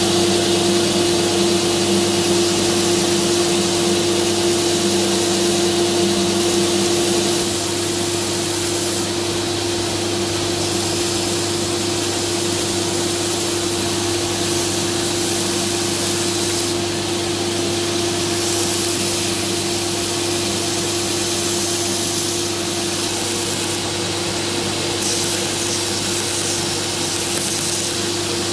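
Belt grinder running with a steady motor hum as wooden revolver grip panels are sanded on its abrasive belt, the gritty sanding hiss growing and fading as the wood is pressed on and eased off.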